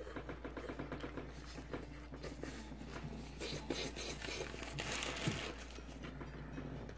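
Paper burger wrapper crinkling and rustling in the hands, with close-up chewing of a bite of burger, over a low steady hum.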